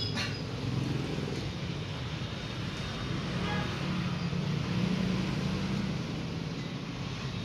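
Industrial mattress-edge sewing machine running with a steady low hum, swelling slightly midway, with a sharp click just after the start.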